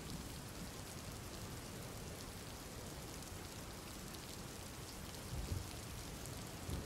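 Steady rain falling, a faint even hiss of rainfall.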